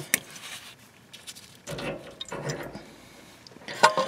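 Handling noise as a fuel-oil filter canister is worked off its cast-iron filter head and set in a metal catch pan: light scraping and rubbing with a few faint clicks, then a sharper metallic clink near the end with a brief ring.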